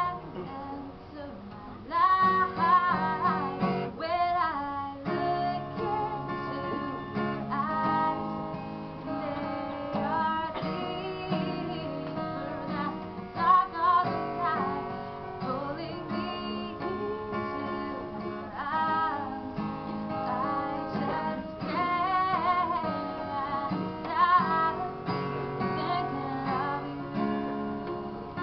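A woman singing a song while playing an acoustic guitar.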